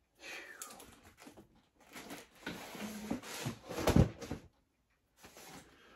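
Vinyl record albums in plastic outer sleeves being rummaged through and pulled from a pile: scattered rustling and knocks, with a dull thump about four seconds in.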